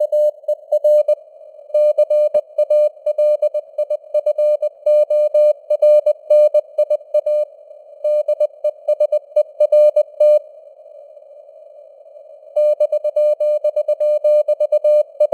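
Morse code (CW) keyed at 20 words per minute: a single steady beeping tone switched on and off in dots and dashes over a hiss of simulated radio noise. The keying pauses for about two seconds around two-thirds of the way through, leaving only the hiss, then resumes.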